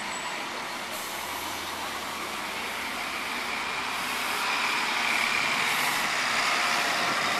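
Engine of a double-decker bus running as the bus pulls past close by, over steady traffic noise; it grows louder about two-thirds of the way through.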